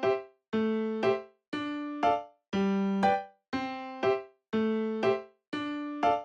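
Background music: a keyboard playing a simple repeating figure of paired notes, a longer note then a short accented one, about one pair a second with brief silences between.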